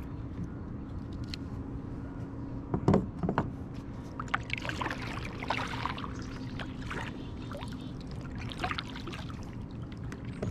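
Two thumps about three seconds in, then a kayak paddle dipping and splashing through the water in several strokes.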